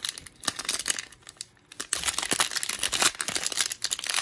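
Cellophane wrapper of a trading-card cello pack crinkling as it is handled, with many quick crackles. It goes quieter about a second in, then the crinkling comes back dense and continuous from about two seconds in.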